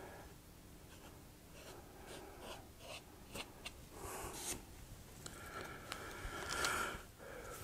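Faint, irregular scratching and rubbing strokes of pan pastel being worked onto a model road surface to lay down oil stains, with a few light clicks.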